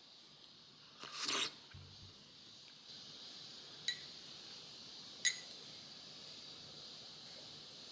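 A metal spoon clinking twice against a stemmed glass dessert cup of coffee jelly and milk, each a short ringing tick. About a second in there is a brief rustling scrape.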